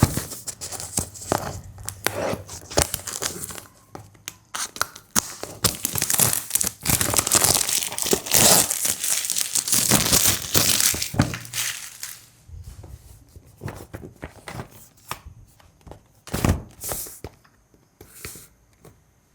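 Product packaging being torn open and crinkled by hand during an unboxing, loudest a little past the middle, then giving way to a few scattered knocks and handling sounds as the contents are taken out.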